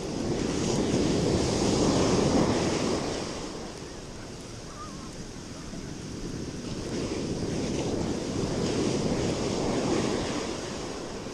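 Ocean surf breaking and washing up the beach, swelling loud, easing off, then swelling again.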